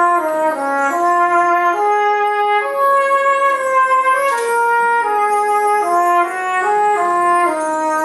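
Full brass band of cornets, horns, euphoniums, trombones and tubas playing a slow passage of sustained chords that change roughly once a second.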